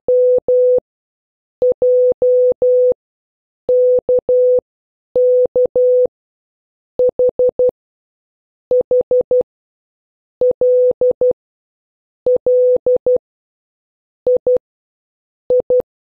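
Morse code practice tones: one steady mid-pitched beep keyed in short dits and long dahs at fast speed, one letter at a time with a pause of about a second between letters. Among them are H as four quick dits and, near the end, I as two dits.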